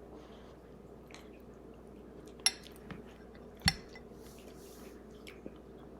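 Cutlery clinking against a dish a few times as food is scooped up, with two sharp clinks near the middle and soft scraping between.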